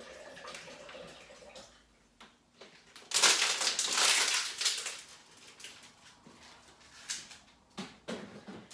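A wrapper crinkling and being crumpled in the hands, loudest for about two seconds in the middle, with softer rustles before it and a few short clicks near the end.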